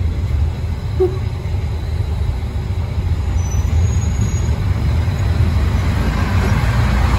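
HSB class 187 narrow-gauge diesel railcar running as it pulls into the station on the next track, its engine a steady low rumble that grows louder near the end as it passes close by.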